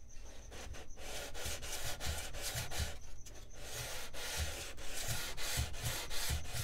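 Hand sanding block with about 240-grit sandpaper worked back and forth along a hardwood wing spar, about two strokes a second.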